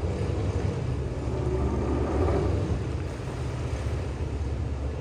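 Steady low rumble of a running motor, with no break or change in pitch.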